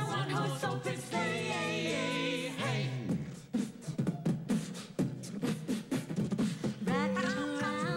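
A cappella group singing in close harmony over a sung bass line into handheld microphones. About three seconds in the held chords drop out for a stretch of beatboxing, sharp clicks and thumps made by mouth, and the sung chords come back near the end.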